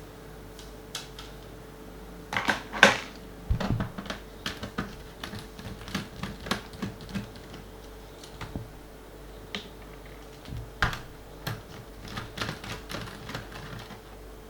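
Irregular clicks and light knocks of an Acer Aspire E1-570 laptop's plastic case and parts being handled during disassembly, with the loudest knocks a couple of seconds in and scattered clicks after. A faint steady hum sits underneath.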